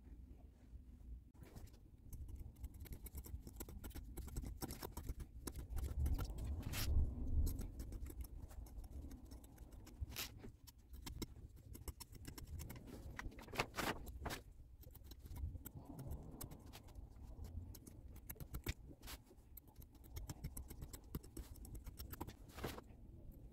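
Scissors snipping through quilted towel fabric along the edge of a bath mat, with many short sharp clicks, plus cloth rustling and bumps from handling the fabric on the table.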